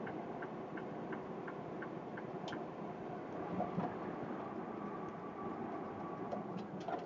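Steady engine and road drone inside a semi-truck cab, with a turn-signal relay ticking about three times a second until it stops about two and a half seconds in.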